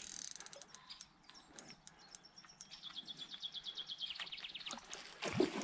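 Fishing reel's ratchet clicking in an even run, about ten clicks a second, while a hooked carp is being played. There is a brief bump near the end.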